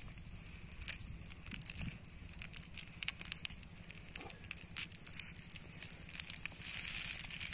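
Sporadic small clicks and crackles as a cast net is handled over a heap of freshly caught snails, the shells knocking together and the mesh rustling.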